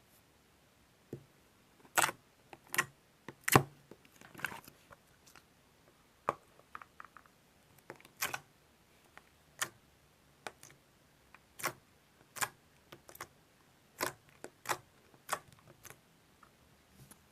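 Thick rice-cake (tteok) slime being pressed and stretched by hand, giving irregular sharp sticky clicks and pops, roughly one or two a second, some in quick pairs, the loudest about two and three and a half seconds in.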